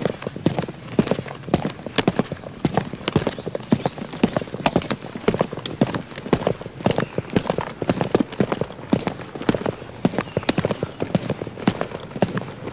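Horses' hooves clip-clopping at a walk, an uneven run of several strikes a second, as of a horse-drawn funeral carriage passing.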